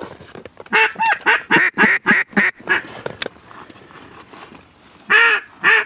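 Duck call blown in a fast run of about eight loud quacks, then, after a pause, two more quacks near the end.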